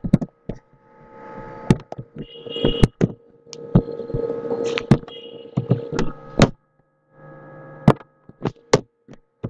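Computer keyboard keystrokes and mouse clicks at irregular intervals over a steady electrical hum. This is the sound of code being copied, pasted and edited.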